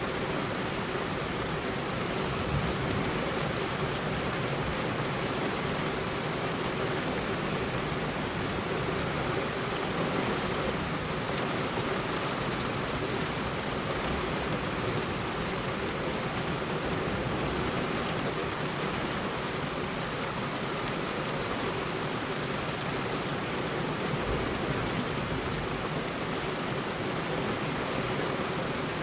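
Heavy rain falling steadily on a road surface: a dense, even hiss with scattered drop ticks and no thunder.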